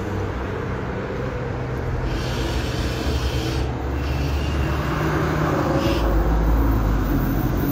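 Street traffic: a motor vehicle's engine running steadily, with a deep rumble coming in and growing louder near the end.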